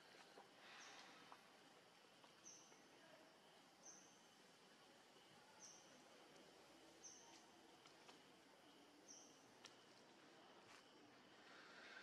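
Near silence: faint outdoor background with a short, high chirp repeating every one and a half to two seconds, from a bird or insect.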